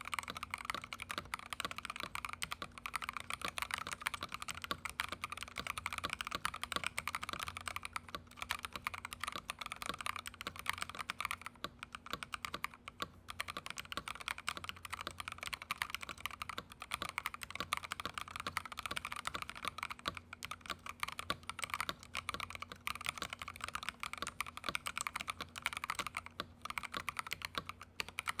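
Continuous fast typing on a Feker IK75 gasket-mounted 75% keyboard with lubed MMD Cream linear switches in a steel plate: a steady, unbroken run of keystrokes.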